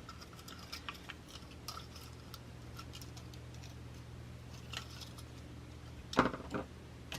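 Faint scattered clicks and ticks of beads, wire and small tools being handled for wire wrapping, over a low steady hum. A louder brief double sound comes about six seconds in.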